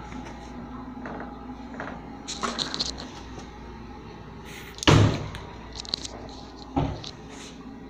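Short squeaky rattles, then a loud thump about five seconds in and a smaller one near seven seconds, as a worn sink faucet handle is worked and the phone is handled. A steady room hum runs underneath.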